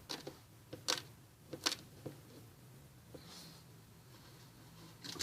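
A few sharp clicks and taps from the cracked plastic inside an Electrolux refrigerator as it is pressed and flexes, the weak spot behind the fridge's loud cracking.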